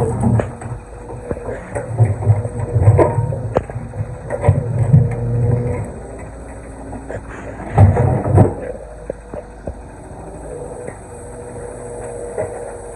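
Excavator engine running steadily while stone is broken and moved, with repeated heavy rumbles and sharp knocks of rock. The knocks come thickest a couple of seconds in and again in a loud pair about eight seconds in.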